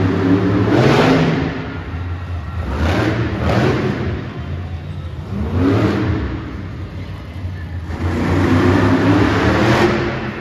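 Monster truck engine revving hard in repeated bursts, each rising in pitch over a deep running note.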